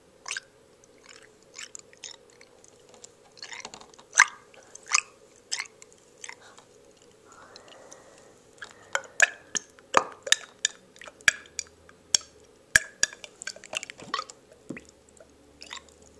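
Close handling noise: irregular sharp clicks and taps, sparse at first and coming thicker after about nine seconds, over a faint steady hum.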